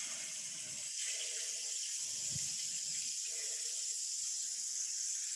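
Kitchen sink faucet running steadily while a cleaned-out green pepper is rinsed under the stream.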